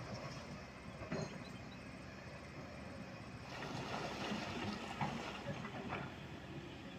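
Kobelco SK200-10 excavator working in a shallow river: its diesel engine runs steadily while the bucket scrapes and knocks against rocks on the riverbed. There are a few sharp knocks, most of them in the second half.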